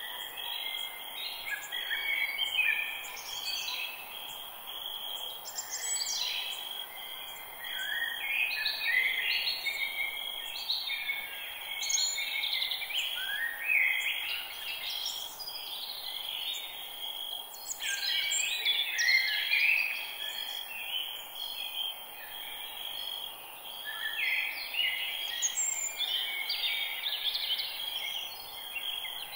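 Forest ambience: many birds chirping and calling over one another, with a steady high insect-like hum and hiss running beneath.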